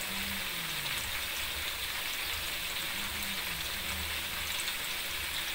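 Chicken pieces deep-frying in a wok of hot oil: a steady sizzling crackle.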